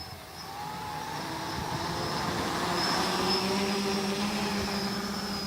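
Quadcopter's brushless motors and propellers spinning at a little under half throttle. The hum grows louder over the first few seconds, then holds steady.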